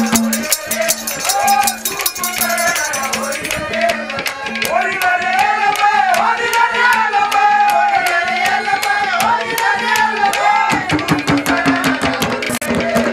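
A Haryanvi folk band plays an instrumental interlude between ragni verses. A wavering, gliding melody runs over a steady low drone and fast, dense drum and rattle percussion.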